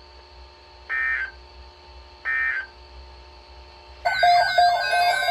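Emergency Alert System end-of-message data bursts: short, harsh two-tone digital chirps, the end of one and then two more about 1.3 s apart, signalling that the severe thunderstorm warning message is over. About four seconds in, a louder, continuous mix of steady tones with a warbling high tone starts.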